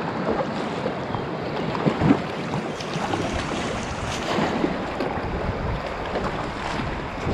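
Rushing whitewater of a river rapid splashing around a paddled boat, a steady wash of water with irregular splashes, the loudest about two seconds in.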